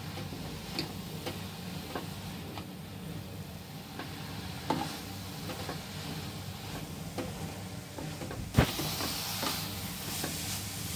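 Grated carrot sizzling in ghee in a kadai while a slotted spoon stirs it, with scattered light scrapes and knocks of the spoon against the pan. One louder knock comes about three-quarters through, after which the sizzle sounds brighter.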